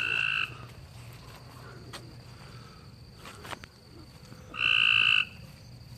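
A male frog calling twice, each call a single even note about half a second long, one right at the start and one a little before the end: a mating call.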